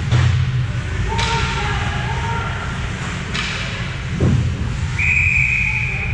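Sharp knocks of puck and sticks echoing around an indoor ice rink, three of them spread over the first few seconds and a duller thud later. Near the end, a referee's whistle gives one long high blast that is loudest as it starts and then tails off.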